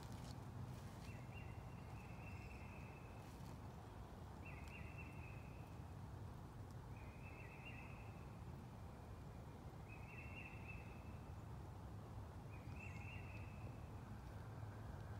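A faint high trilling call, about a second long, repeated every two to three seconds over a steady low rumble.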